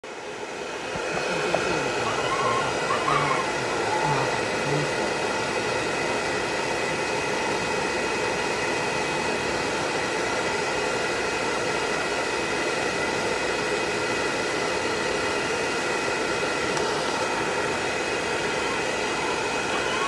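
Hair dryer blowing on a wet chinchilla's fur, coming up to speed within the first second and then running steadily: a rush of air with a steady motor whine.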